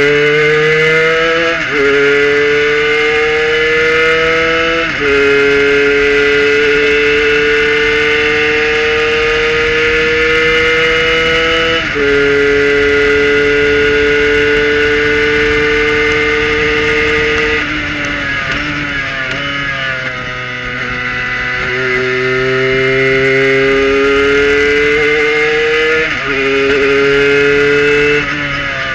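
Kohler-powered Prototype 1 race car engine at full throttle, heard from the cockpit. It pulls hard up through the gears, with three upshifts in the first dozen seconds that each drop the pitch, and holds high at top speed. Then it falls in pitch under braking with a few downshift blips, and pulls up again with another shift and a lift near the end.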